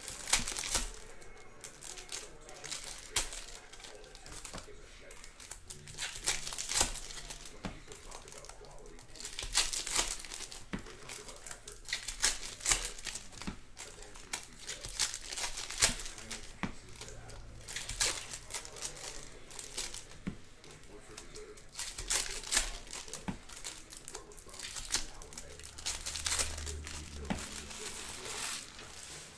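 Foil wrappers of baseball card packs crinkling and tearing as they are ripped open, in repeated bursts, with cards handled and shuffled against each other in between.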